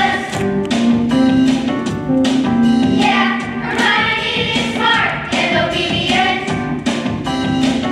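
A group of fourth-grade children singing a song together in unison over an accompaniment with a steady beat.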